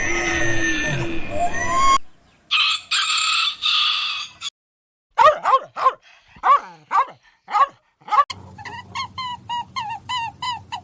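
A brief music intro ends about two seconds in. Farm-animal calls follow in quick succession: a rooster crowing, a run of short falling calls, then rapid short repeated calls, about three a second.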